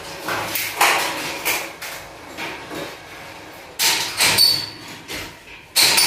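Irregular knocks and clanks from metal ceiling framing being fitted and struck overhead. One knock about four seconds in is followed by a short metallic ring.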